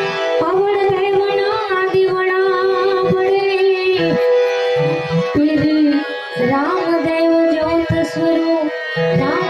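Woman singing a Gujarati folk song into a microphone over a steady instrumental drone, in two long phrases: a note held from about half a second in to about four seconds, then a second phrase that slides up into its notes.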